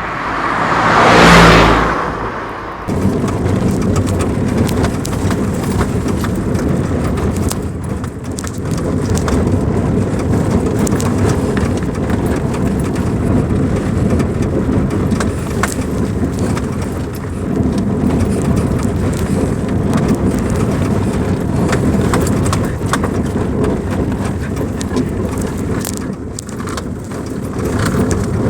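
Car driving over a rough, bad road: a steady rumble of tyres and engine with frequent short knocks and rattles from the bumps. A loud sound swells and fades in the first two seconds.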